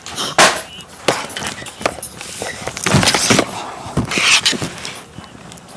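The plastic packaging of an HDMI cable being handled and pulled open: irregular crackling, crinkling and sharp clicks, loudest in bursts about half a second in, about three seconds in and just after four seconds.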